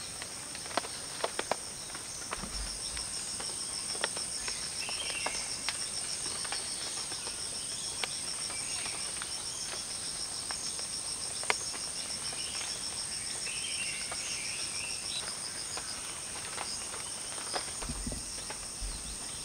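Chorus of forest insects: a steady high whine with a fast, even trill above it. Scattered light clicks and taps sound through it, and brief chirps come twice.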